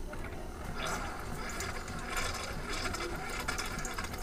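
Single-serve pod coffee maker brewing: a steady hiss of hot water and coffee pouring into the mug starts about a second in and runs on, over a low machine hum.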